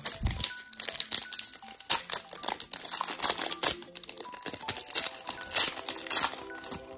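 Foil trading-card pack wrapper being torn open and crinkled by hand, with irregular crackling and tearing as the cards are pulled out.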